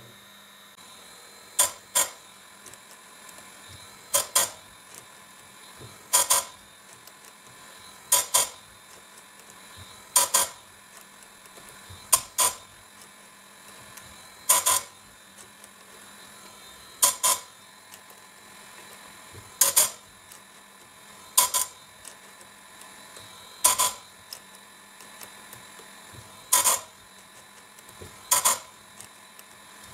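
Electric saw-chain sharpening grinder running with a faint steady hum, its abrasive disc touching the chain cutters in short, sharp grinding bursts, mostly in pairs, about every two seconds. Each cutter is being ground down to the machine's stop so that all the teeth end at the same height.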